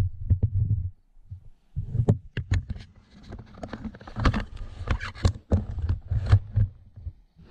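Mountain bike rolling down a rough dirt trail, heard from a camera on the rider or bike: low wind buffeting on the microphone, a short lull, then a run of rattles and knocks as the bike goes over bumps.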